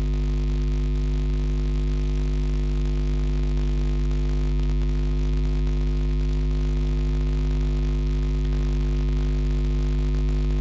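Steady electrical mains hum: a low 50 Hz buzz with its overtones, unchanging throughout.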